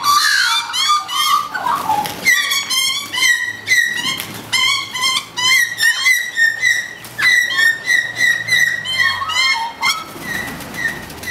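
Australian magpies calling during a territorial fight between two males: a dense run of quick, overlapping warbling and chattering calls.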